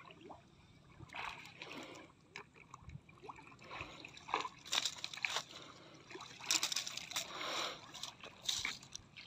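Hands sloshing and splashing through shallow muddy water in irregular bursts, groping in the mud for freshwater clams, with a few sharp clicks among the splashes.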